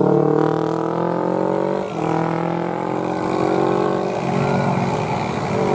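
Tour bus telolet horn held in long blasts: a chord of steady tones that starts suddenly and sags slightly in pitch, breaks briefly about two seconds in, and weakens near the end.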